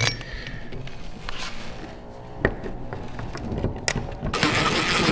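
A few sharp metallic clicks as a blow-off valve is put back together over a stiffer spring, then about four seconds in a cordless drill starts running steadily, driving in the valve's screws.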